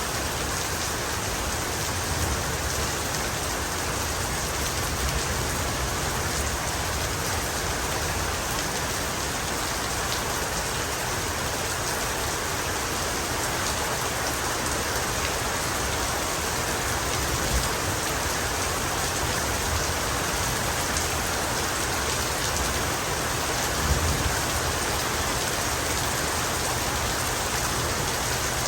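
Steady heavy rain falling, a dense, even hiss of drops, with a few slightly louder spatters.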